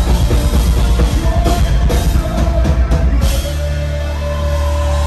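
Rock band playing live at full volume with heavy drums and bass. About three and a half seconds in, the drums stop and a final chord rings on under a long held note.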